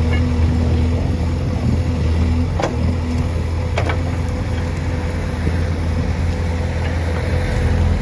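CASE 851EX backhoe loader's diesel engine running steadily as the backhoe digs, with two sharp knocks from the bucket in stony soil about three and four seconds in. The engine note strengthens near the end as the boom lifts the loaded bucket.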